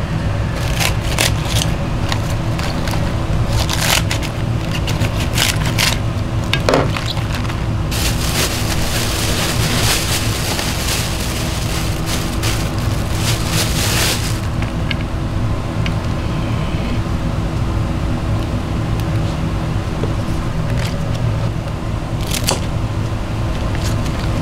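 Napa cabbage leaves and plastic being handled by gloved hands, rustling and crinkling, with a few sharp clicks. The crinkling is densest for about six seconds in the middle. Under it runs a steady low machine hum.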